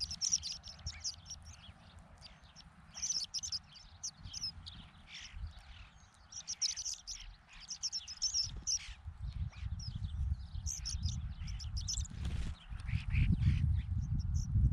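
A mixed winter flock of horned larks, Lapland longspurs and starlings calling, with repeated bursts of high chirps and twitters. Under the calls runs an irregular low rumbling that grows louder in the second half, loudest near the end.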